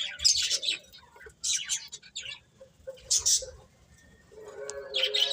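Small birds chirping in short groups of rapid high chirps, with pauses between. Near the end a lower, drawn-out sound with several stacked pitches joins the chirps.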